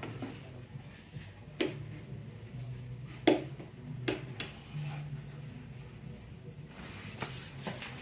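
A few sharp plastic knocks and clicks from handling a Honeywell warm mist humidifier and pressing the mode button on its front, the loudest about three seconds in, over a low steady hum.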